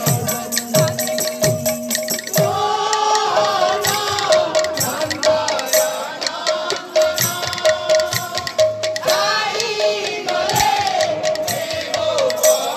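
Live Odia kirtan folk music: a woman sings devotional phrases over two-headed barrel drums and crisp percussion strokes. Behind them a held note sounds in short, evenly repeated pulses.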